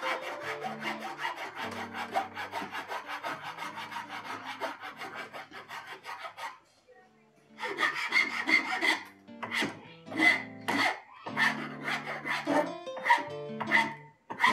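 Hand file rasping on a wooden hammer handle in quick, repeated strokes. The strokes stop for about a second around seven seconds in, then resume slower and more spaced.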